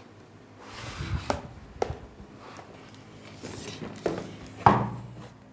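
Clear plastic blister packaging of a screwdriver set being handled: short rustles with four sharp clicks and knocks, the loudest near the end.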